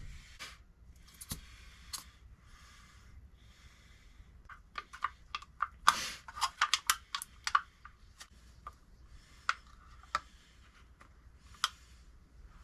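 Scattered light clicks, taps and rustles of small parts being handled during the glue-up of a knife handle, with a cluster of quick clicks about five to eight seconds in.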